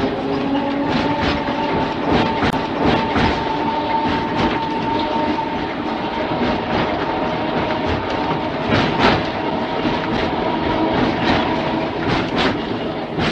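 Mumbles Railway electric tramcar running along the line: a motor whine that climbs slightly in pitch over the first couple of seconds, then holds steady over the rumble of the wheels, with irregular clicks from the wheels passing over rail joints.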